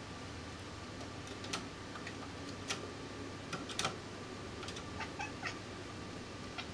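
Domestic kitten chattering at a fly she can't reach: a string of short, clipped chirps and clicks, irregularly spaced, the excited call of a cat watching prey.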